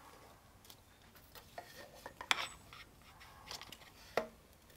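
Light clicks and taps of a carbon seatpost being handled and slid up inside a Brompton folding bike's seat tube, the sharpest click a little past two seconds in and another about four seconds in.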